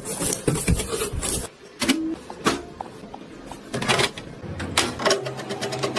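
Irregular clicks, knocks and short scraping or rustling bursts, as of hardware being handled and fitted together by hand.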